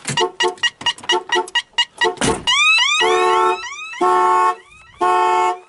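Viper 3106V car alarm going off after a door is opened while armed. Its siren runs through its tone sequence, first a rapid chirping pulse, then rising whoops, while the car horn sounds in half-second blasts about once a second.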